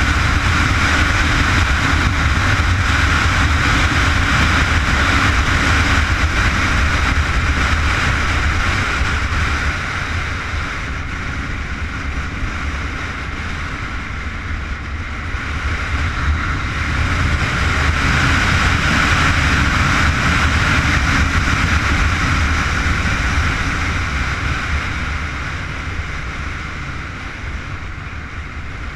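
Honda CBR919RR inline-four engine running under load at track speed, mixed with wind rush over the bike-mounted microphone. Loud at first, easing off about a third of the way in, picking up again past the middle, and easing again near the end.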